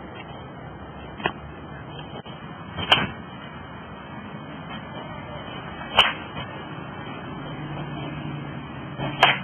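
Sharp cracks of a metal baseball bat hitting balls in batting practice: three loud hits about three seconds apart, each with a short ring, after a fainter knock.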